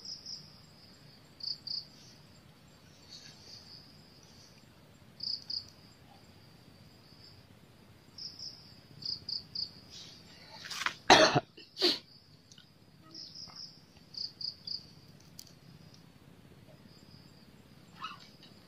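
Insects chirping in short high-pitched pulses, mostly in groups of two or three, repeating every second or two. Two short loud sounds come close together a little past the middle.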